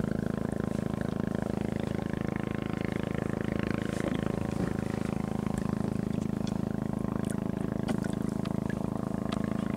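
A small fishing boat's engine running steadily, a constant even drone.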